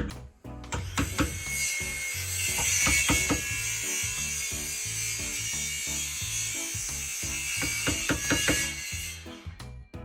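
Handheld power tool running steadily as it cuts into a wooden door to make the recess for an electronic lock. It starts about a second in and cuts off near the end.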